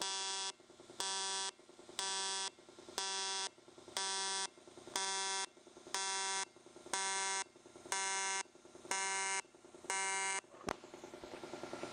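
AC TIG welding arc on aluminum sheet, an Everlast 210 EXT set to 200 Hz AC, buzzing in pulses of about half a second, one pulse a second. The arc drops almost to nothing between pulses. After the last pulse there is a click, and then a hiss rises near the end.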